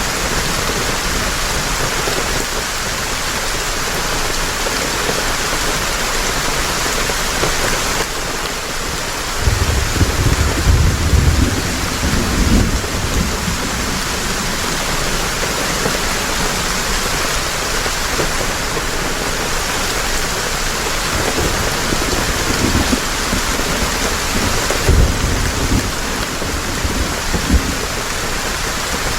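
Heavy rain falling steadily, with a low rumble of thunder about ten seconds in that lasts a few seconds, and a few shorter, fainter rumbles later on.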